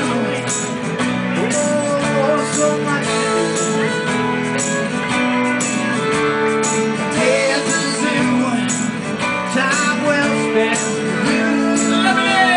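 Live music through a PA loudspeaker: strummed acoustic guitar with a steady beat, in an instrumental stretch of the song with little or no singing.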